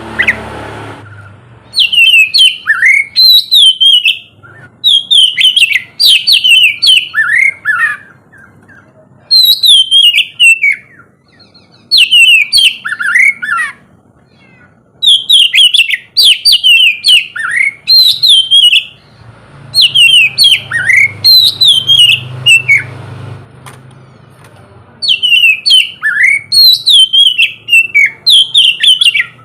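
Oriental magpie-robin (kacer) singing loudly in bursts: quick runs of short, downward-sweeping whistled notes, with brief pauses between phrases.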